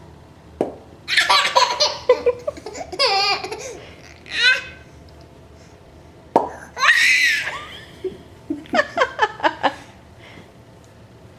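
A six-month-old baby's belly laughter in repeated bursts, set off by two sharp mouth pops made by pulling a thumb out of the mouth, about half a second in and about six seconds in. The laugh after the second pop ends in a quick run of short giggles.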